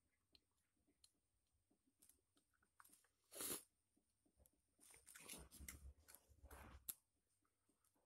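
Quiet eating sounds: a metal spoon cutting into a corn-and-egg omelette and scraping the glass plate, with chewing. A short burst comes a bit over three seconds in, then a longer run of scrapes and clicks from about five to seven seconds.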